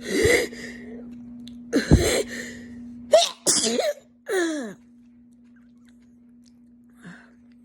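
A woman's two sharp, explosive sneeze-like bursts, a reflex to raw onion fumes in her nose and throat, followed by a few strained vocal sounds that fall in pitch.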